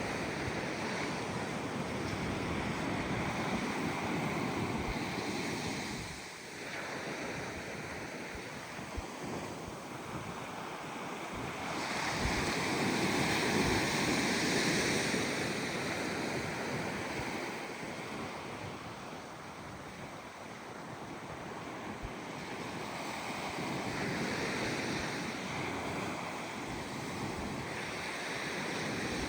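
Gentle ocean waves breaking and washing up the beach, the surf swelling and ebbing every several seconds and loudest about halfway through. Wind buffets the microphone with small low thumps.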